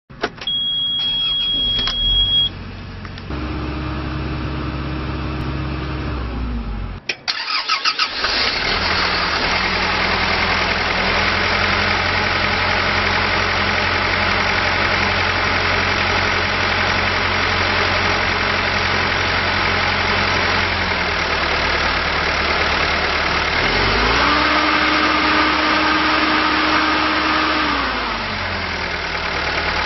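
Komatsu PC130-8 excavator's four-cylinder diesel engine: a steady high beep sounds for about two seconds as the key is turned, then the engine starts and runs. After a brief break it idles steadily, revs up about three-quarters of the way through, holds, and drops back to idle near the end.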